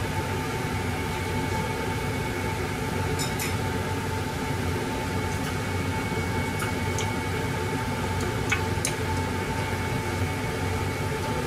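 Steady mechanical hum of a running kitchen appliance, with a few faint light clicks.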